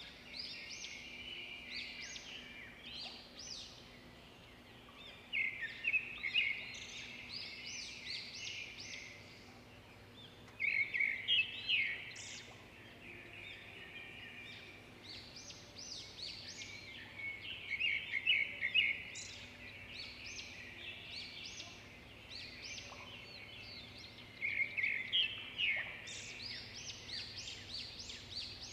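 Birds chirping and singing in bursts every few seconds, over a faint steady hum.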